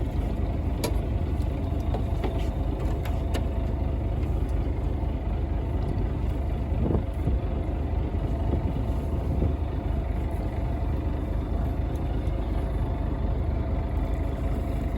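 Fishing boat's engine running steadily with a low hum, with a few faint clicks in the first few seconds.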